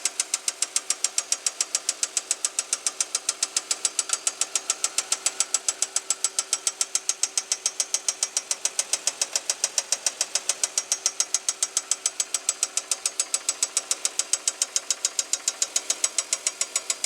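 2005 Chevy Equinox's 3.4-litre 3400 V6 running with a sharp, steady knock, about five a second. The owner hopes it is a loose rocker arm; oil pressure is good and no metal showed in the old oil.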